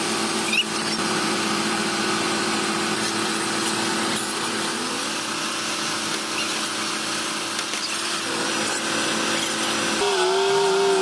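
Bulldozer's diesel engine running steadily under load, with a constant hum.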